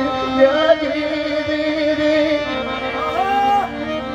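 Gujarati folk song music: an instrumental passage between sung lines, a melody over a steady held drone note.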